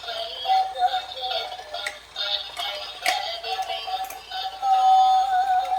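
Tinny electronic music with a synthetic singing voice, its melody wavering and then holding one steady note near the end. A few sharp clicks come through it.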